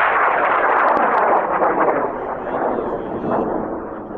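High-power rocket's M1378 solid motor igniting at liftoff: a loud roar that starts all at once, holds for about two seconds, then slowly eases off.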